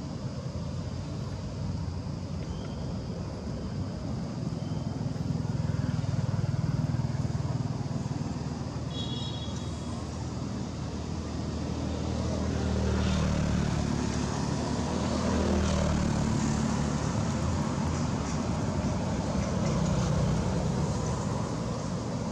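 Road traffic going by: a low vehicle rumble swells and fades several times as cars and motorbikes pass. A brief high-pitched tone sounds about nine seconds in.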